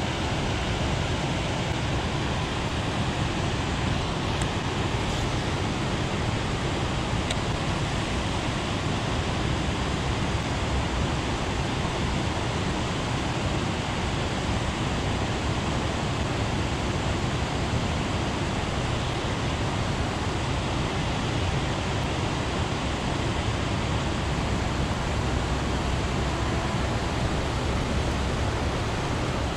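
Steady rush of water pouring over a dam spillway, an even, unbroken roar of falling water.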